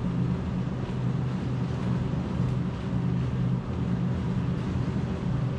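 Motorized treadmill running steadily with a person walking briskly on its belt at 3.4 mph up a 14% grade: a steady motor hum with belt noise.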